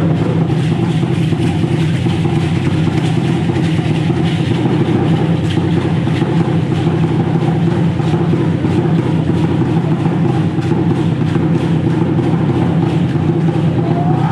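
Fast, unbroken drumming for an Aztec-style dance, kept up as a steady roll with a rattling hiss over it.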